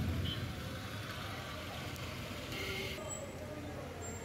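Steady rain falling on a city street, with light traffic passing on the wet road.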